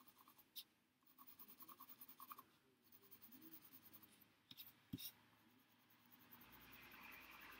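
Faint, quick back-and-forth scratching of a pencil shading on paper, in two spells with a short pause between, and a couple of small clicks past the middle.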